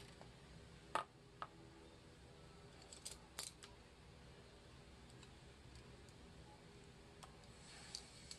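Faint clicks and knocks of art supplies being handled on a desk: a plastic paint palette moved and set down, and paintbrushes laid down near the end. The sharpest click comes about a second in, and there is near-silent room tone between the knocks.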